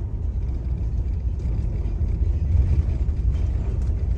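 Steady low rumble of a moving vehicle, mostly road and engine noise, heard from inside the cab.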